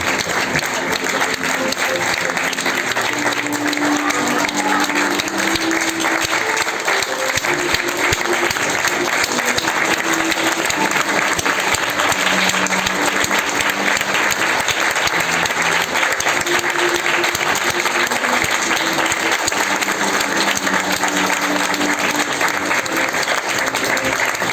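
Audience applauding steadily and continuously, with a slow melody of music playing underneath the clapping.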